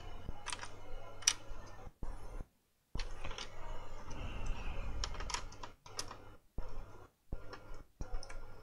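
Irregular plastic clicks, taps and rustles of a laptop motherboard being handled and pressed into its plastic bottom case and connectors, with a few sharper clicks standing out.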